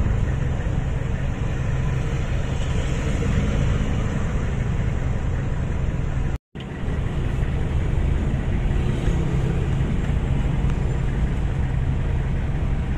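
Jeepney engine running with a steady low drone, heard from inside the open passenger cabin along with road noise. The sound cuts out for a moment about halfway through.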